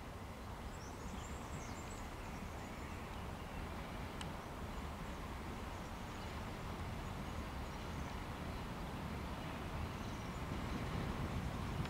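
2TE116 two-section diesel locomotive approaching at low speed: the steady low rumble of its 16-cylinder diesel engines, growing slowly louder. A few faint bird chirps about a second in.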